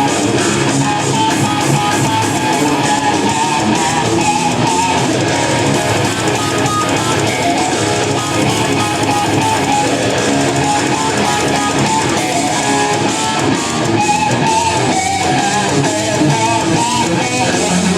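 Electric guitar playing a lead line with wavering, vibrato-laden notes over a full band backing track.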